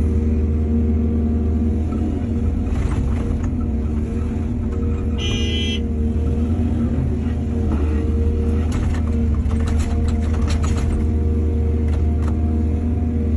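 Diesel engine of heavy earthmoving machinery running steadily, with scattered clatter about three seconds in and again from about eight and a half to eleven seconds. A short high-pitched squeal or beep sounds about five seconds in.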